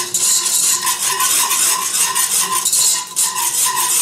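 Wire whisk beating custard powder into hot milk in a nonstick saucepan: a fast, continuous scraping and rattling of the whisk wires against the pan, in quick strokes about three a second.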